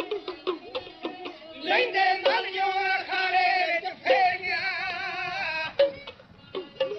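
Punjabi dhadi music: quick hand-drum strokes at about four a second, then from about a second and a half in a long sung melodic line with vibrato. It breaks off near six seconds, and the drum strokes come back near the end.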